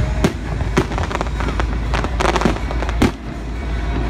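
Fireworks display: a string of sharp bangs from bursting shells, about six in four seconds, with a burst of crackling a little past the middle, over a steady low rumble.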